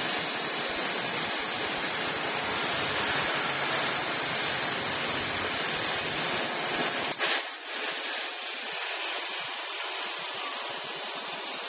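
CNC drilling and cutting machine at work: a steady hissing noise, with a sharp click about seven seconds in, after which the low rumble drops out.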